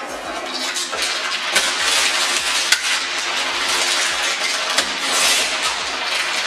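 Tissue paper rustling and crinkling as it is pulled out of a gift box, a steady crackle of many small ticks.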